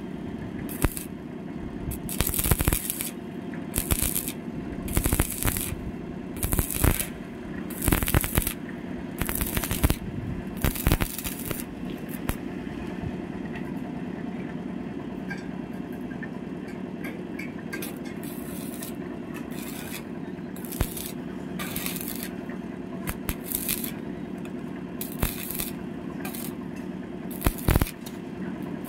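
Stick (arc) welding on steel box-section tube: the electrode arc crackles and sizzles in bursts of about a second, thick at first, sparse through the middle, and coming back near the end. A steady low hum runs underneath.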